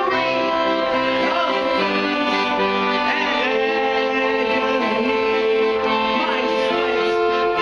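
Accordion played live in a driving death-polka style, with sustained reedy chords and melody, and a man singing over it.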